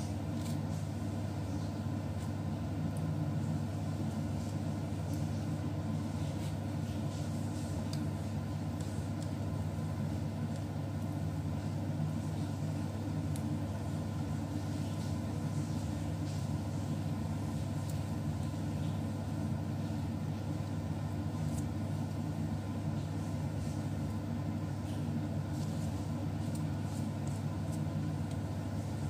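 A steady low machine hum that runs on unchanged, with a few faint light ticks over it.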